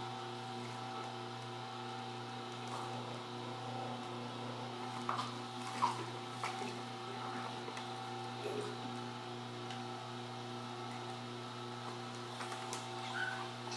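Electric juicer motor running with a steady hum while fruit is pressed down its feed chute with a plastic pusher. A few short knocks and clicks from the pusher and fruit come around the middle and again near the end.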